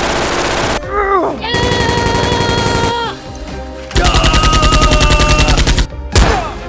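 Dubbed-in gunfire sound effects: long runs of rapid automatic fire with a ringing tone over the shots, a falling swoop about a second in, and a single sharp shot near the end.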